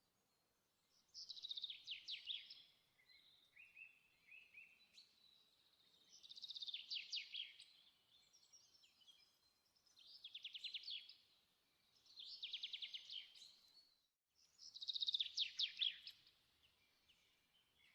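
A small songbird singing: five phrases of rapid high trills, a few seconds apart, with softer chirps between them.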